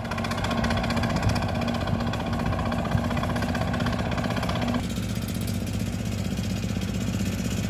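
Diesel tractor engine running steadily while tilling. About five seconds in, the sound abruptly turns duller.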